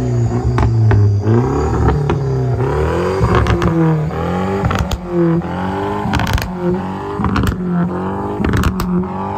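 Second-generation Mini Cooper S Clubman engine and centre-exit twin exhaust revved hard again and again, the pitch rising and falling with each blip, for a sound-level meter reading at the tail pipe. Sharp cracks come between several of the revs.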